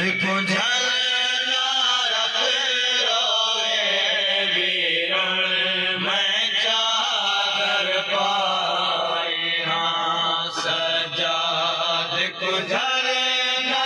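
A man sings a nauha, a Shia lament, into a microphone in a long, held chant, with a group of men singing along.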